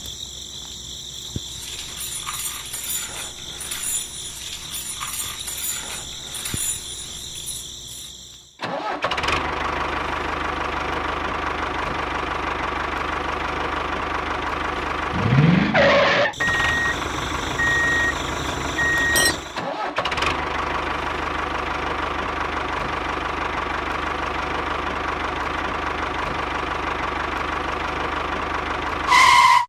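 Small motor of a miniature DIY machine running steadily with a held hum, starting after a cut about a third of the way in. It briefly rises in pitch near the middle. Crickets chirr during the first few seconds.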